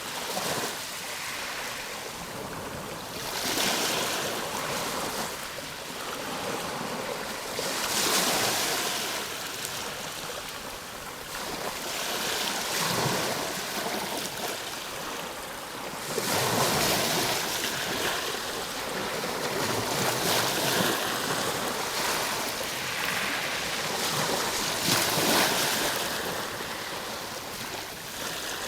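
Ocean waves: a continuous rushing wash of surf that swells and fades every few seconds as each wave comes in.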